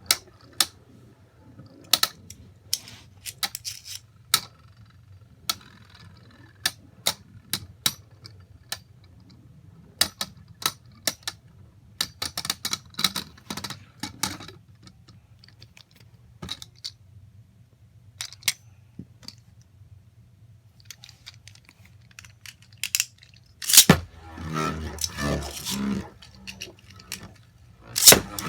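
Irregular sharp clicks and clacks of small hard plastic parts being handled, as a Beyblade Burst Air Knight top and its packaging are worked by hand. A denser, louder clattering starts about 24 seconds in.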